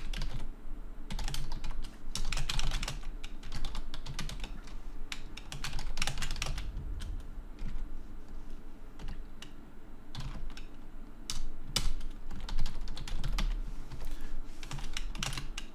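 Computer keyboard typing: quick, irregular runs of keystrokes with short pauses between them, over a faint low steady hum.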